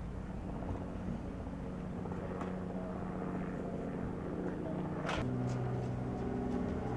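A motor vehicle engine running with a steady low hum, its note shifting and growing a little louder about five seconds in, with a sharp click just before the change.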